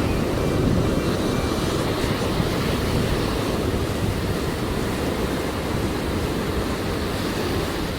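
Steady wash of surf with wind buffeting the microphone.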